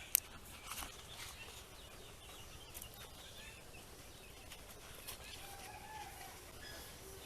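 Faint birds chirping and calling, with a sharp click just after the start and a few softer clicks later.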